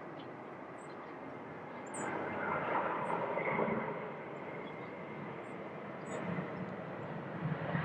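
Distant jet airliner engines as a twin-engine jet lands and rolls out on the runway: a steady rushing noise that swells about two seconds in and eases off about two seconds later.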